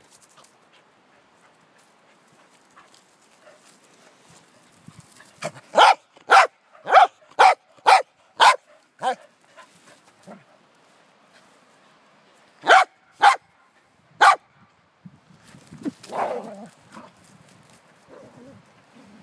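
Corgi barking: a quick run of about eight sharp barks at roughly two a second starting about five seconds in, then after a pause three more, followed by a longer, rougher, lower sound.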